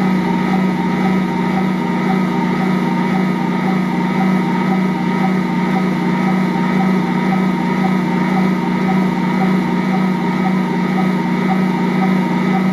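Ankarsrum Assistent Original stand mixer running steadily at fairly high speed, its rotating bowl driving a 1 kg batch of bread dough against the roller with a steady hum. The machine is kneading the heavy dough easily, without strain.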